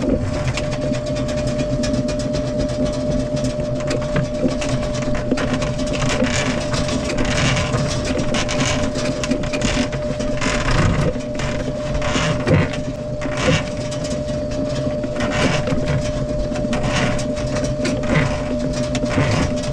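Power drain snake running, its cable spinning in a blocked kitchen sink drain line: a steady motor hum with irregular scraping and rattling as the cable is fed into the pipe.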